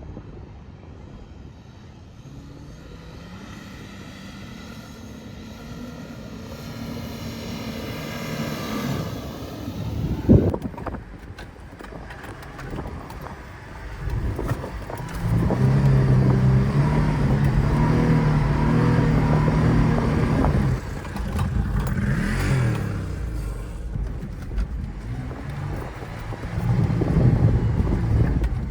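Stock fifth-generation Toyota 4Runner SR5's 4.0-litre V6 driving in soft dune sand. It runs quietly at first, with one sharp thump about ten seconds in. Then the engine revs up under load and holds a steady high note for several seconds, eases off, and picks up again near the end.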